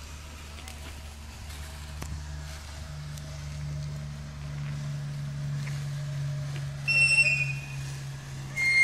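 Ground firework whistling: two short, loud, high whistles near the end, each stepping slightly down in pitch, over a low steady hum.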